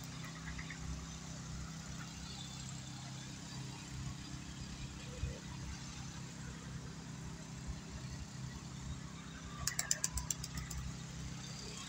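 A steady low engine hum from machinery running at a distance. About ten seconds in comes a quick run of about eight sharp claps within a second.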